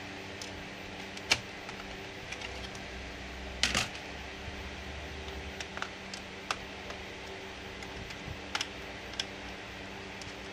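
Scattered light clicks and taps of hands and tools working on a laptop's plastic case, over a steady low hum. The sharpest click comes a little over a second in, and a quick double knock follows near four seconds.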